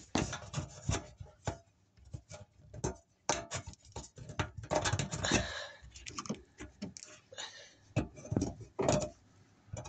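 Irregular clicks, knocks and scraping of a pry tool working at plastic retaining clips on a hybrid battery pack, trying to pop a clip loose.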